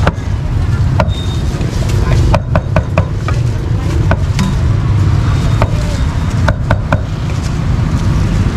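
Knife chopping meat on a chopping block: a dozen or more sharp strikes at irregular spacing, some in quick runs, over a steady low rumble of street traffic.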